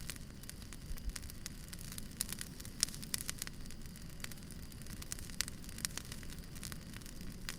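Wood fire crackling, with irregular sharp pops and snaps over a steady low hiss.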